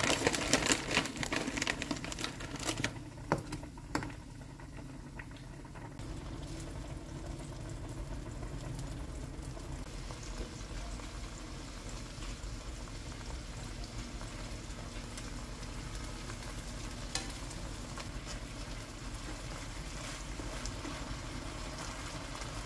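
Raw shrimp sizzling in hot garlic oil in a frying pan, loudest in the first few seconds, with sharp clicks of utensils against the pan. The frying then settles to a quieter, steady sizzle.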